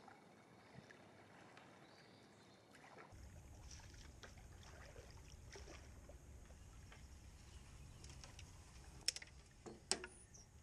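Faint sounds of a canoe being paddled on a river, with two sharp knocks near the end.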